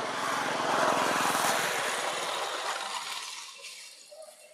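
A motor vehicle's engine passing close by, rising to its loudest about a second in and then fading away over the next few seconds.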